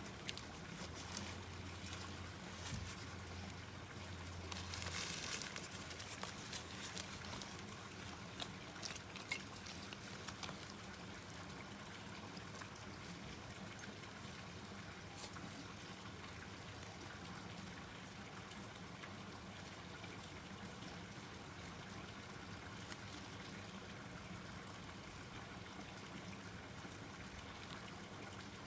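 Small wood fire burning in a portable wood stove, crackling with scattered sharp pops and a denser burst of crackling about five seconds in.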